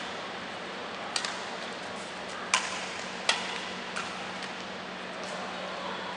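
Badminton rackets striking a shuttlecock in a rally: four or five sharp pops, the loudest about two and a half seconds in, over a steady hum.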